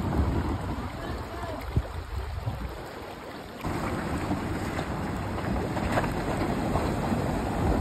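Wind buffeting the microphone over the low rumble of vehicles driving on gravel, then, after an abrupt change about three and a half seconds in, a Mahindra Bolero SUV wading through a shallow river: water splashing around its wheels over its engine running.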